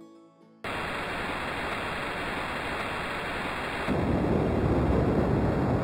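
Project Nursery Dream Weaver sound soother playing its preloaded white noise, a steady, even hiss that sets in after a brief silence. About four seconds in it switches to its ocean-waves sound, a louder, deeper hiss.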